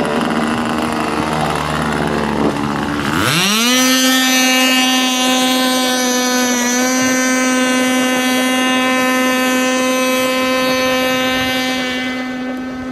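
Nitro glow engine of an AquaCraft radio-controlled boat. For about three seconds it runs lower and rougher, then the throttle opens and its pitch climbs sharply into a steady, high-pitched, full-throttle whine as the boat runs across the lake. The whine grows slightly fainter near the end as the boat draws away.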